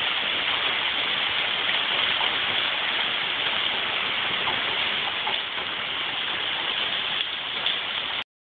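Hail mixed with rain pelting wet concrete pavement: a steady, dense hiss of countless small impacts. It cuts off suddenly near the end.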